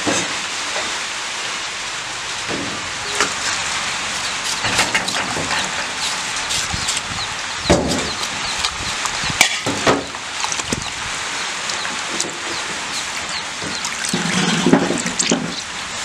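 Hands washing raw pork pieces in a plastic basin of water: splashing and sloshing with short knocks against the plastic. A short low-pitched call sounds about a second and a half before the end.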